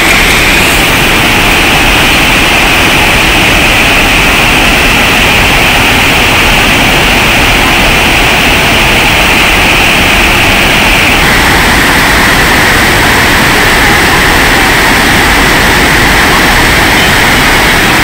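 Loud, steady rush of water pouring over a check dam, an even hiss whose tone drops slightly about eleven seconds in.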